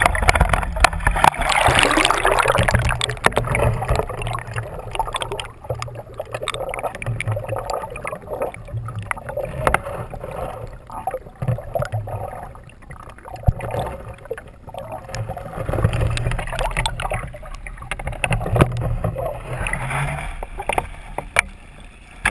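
River water sloshing and splashing around a camera held at and below the surface, with a muffled low rush while it is underwater. The splashing comes and goes in surges, the strongest about two seconds in and again near the end.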